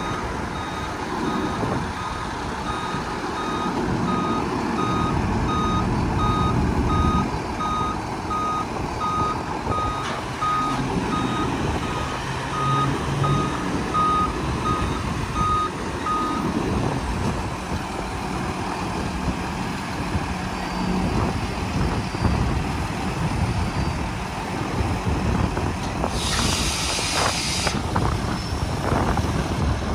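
Garbage truck running with its hydraulic tailgate lowering: a steady series of warning beeps over the diesel engine that stops about halfway through, then a short, sharp hiss of released air near the end.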